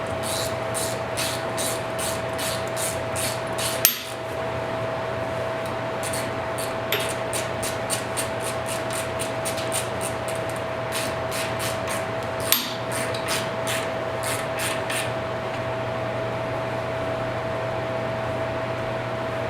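Ratchet wrench clicking in runs of quick ticks, about four a second, as the motorcycle's handlebar clamp bolts are lightly snugged up, with a sharper knock twice, about four seconds in and near twelve and a half seconds in. A steady hum runs underneath.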